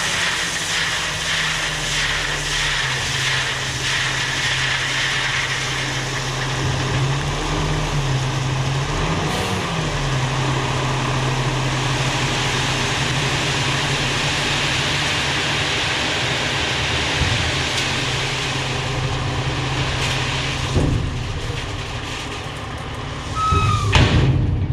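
Heavy diesel equipment engine running steadily under load, its pitch rising and falling briefly about nine seconds in.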